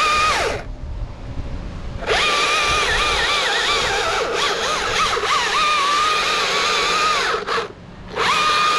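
Two-stroke chainsaw at full throttle cutting wood, its high pitch dipping and wavering as the chain loads in the cut. It drops back to idle about half a second in, cuts again for about five and a half seconds from about two seconds in, idles briefly, and opens up again near the end.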